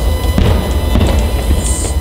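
Aerial fireworks shells bursting, two sharp booms about half a second apart, over loud music and a steady deep rumble.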